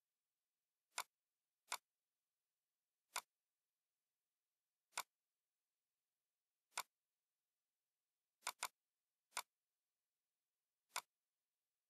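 Sharp single clicks of a computer mouse at uneven intervals, nine in all, including a quick double-click about two thirds of the way through, with silence between them.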